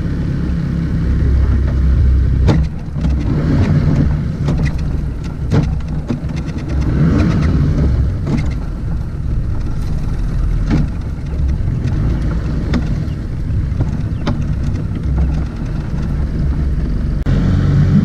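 Motorboat engine running steadily underway, a loud low drone, with scattered sharp knocks over it.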